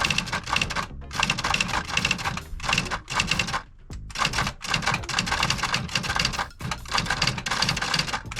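IBM Wheelwriter 30 Series II electronic daisy-wheel typewriter typing: rapid runs of sharp print strikes with short pauses between them.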